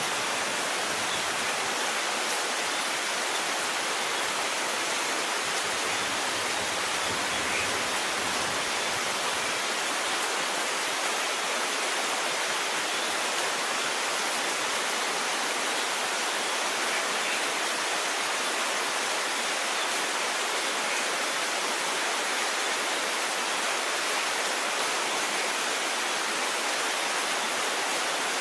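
Steady, dense rain falling without a break, an even hiss with no distinct drops or pauses.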